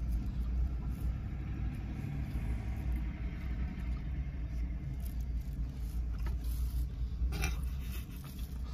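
Car engine idling, a steady low rumble heard from inside the parked car's cabin, with a faint brief rustle or click near the end.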